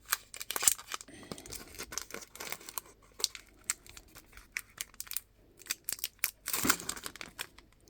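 A foil trading-card booster-pack wrapper crinkling and tearing as it is opened and the cards are handled, a string of crackles and scrapes with a longer, louder rip near the end.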